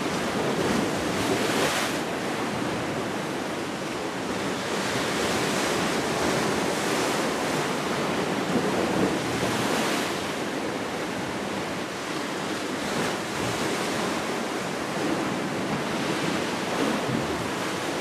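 Sea waves surging and breaking against a rocky shore ledge, a steady wash of surf that swells and eases.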